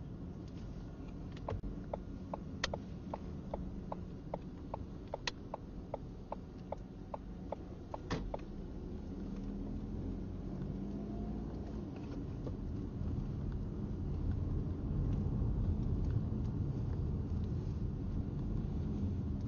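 A vehicle's low rumble, with a run of regular clicks at about three a second for several seconds. The rumble grows louder in the second half.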